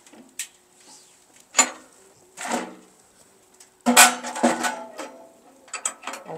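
A Wood & Burn MyStove Regular Plus sheet-metal wood stove, its door and firebox clanking and knocking as they are handled. A few sharp clicks come first, then the loudest, ringing metal clatter about four seconds in, and more knocks near the end.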